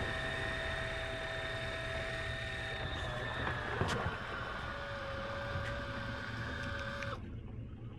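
Suzuki 140 hp outboard motor running steadily as the boat travels, a low hum with a steady whine over it. The whine shifts slightly about three seconds in, there is a single click near four seconds, and the sound cuts off abruptly about seven seconds in.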